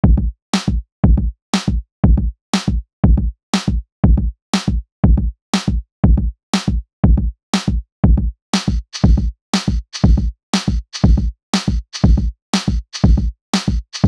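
Electronic background music with a steady drum-machine beat: a kick drum with a sharp snare-like hit about once a second. A hissing high cymbal layer comes in a little past halfway.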